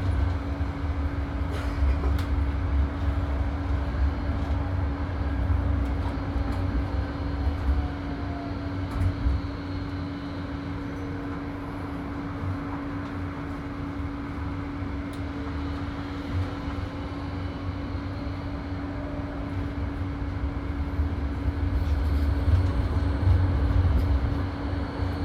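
Karlsruhe tram in motion, heard from on board: a steady low rumble of wheels on street track and a constant hum, with a faint whine that glides up and down partway through. It grows louder near the end as an oncoming tram passes close alongside.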